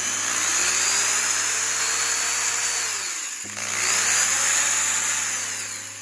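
Ryobi power drill boring holes through the plastic shell of a toy proton-pack wand. The motor whines up and cuts, briefly spins down a little past halfway, then starts again for a second hole and winds down near the end.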